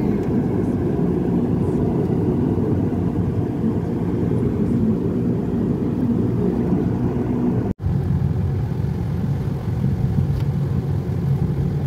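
Steady low rumble of a car on the move, engine and tyre noise heard from inside the cabin. The sound cuts out for an instant about two-thirds of the way through.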